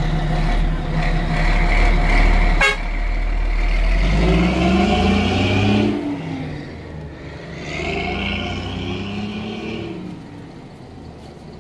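Water tanker truck's diesel engine running, with a single sharp snap about two and a half seconds in, then revving up twice as it pulls away, rising in pitch each time and fading near the end.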